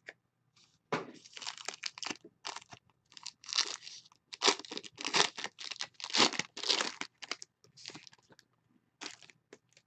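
Foil trading-card pack wrapper being torn open and crinkled by hand: a long run of irregular crackles and rips, busiest in the middle.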